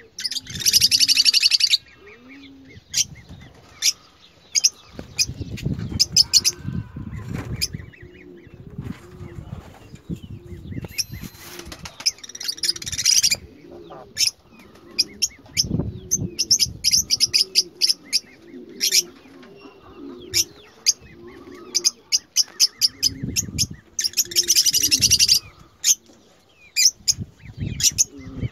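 Lovebirds calling: many sharp, high chirps and shrieks, with three dense bursts of rapid chattering, one about half a second in, one around twelve seconds and one around twenty-four seconds. Low, repeated cooing runs underneath, along with a few dull low rumbles.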